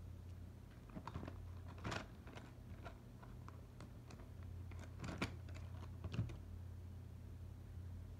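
Light, scattered taps and clicks of a pencil and hand on paper, the clearest about 2 and 5 seconds in, over a low steady hum.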